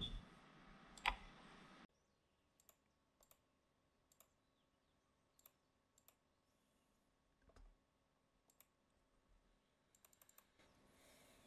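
Near silence, with faint scattered clicks: one louder click about a second in, then single ticks every second or so and a quick cluster near the end.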